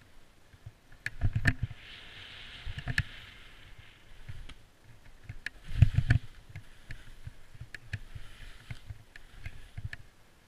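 Skis hissing and scraping over snow through a run of turns, the noise swelling and fading with each turn, with sharp clicks and heavy thumps about a second and a half in and, loudest, around six seconds in.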